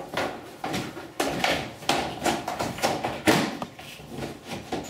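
Vinyl siding panel knocking and clattering as it is pushed and pressed into place along the gable trim: a run of irregular taps and thumps, with one louder knock about three seconds in.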